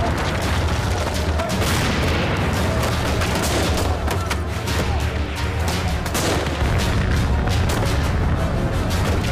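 Staged battle sound: rapid gunfire and explosions throwing up dirt, with a dramatic music score underneath.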